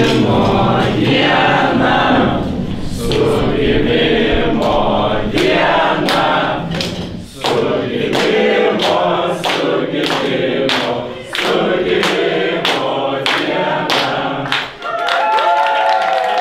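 A group of people singing together and clapping in time, about two claps a second. Near the end the clapping stops and a few voices hold long notes.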